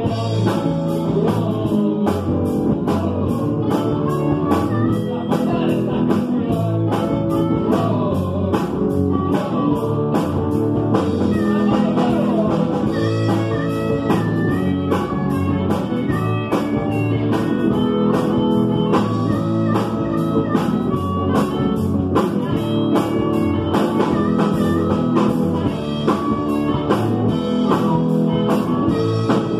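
Live blues-rock band playing: drum kit keeping a steady beat under electric bass and electric guitar.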